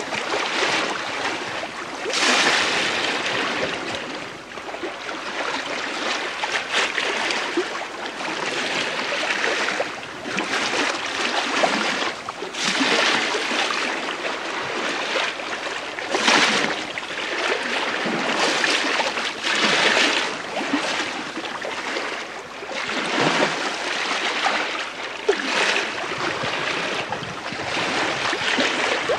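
Bow wave of the schooner STS Malcolm Miller, heard from the lee quarter as she sails in a light wind: a rushing hiss of water along the hull that swells and eases every few seconds.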